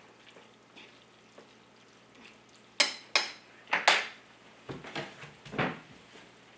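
A cooking utensil clinking against a pan: four sharp metallic knocks about three seconds in, then a few duller knocks and scrapes as the noodles are stirred.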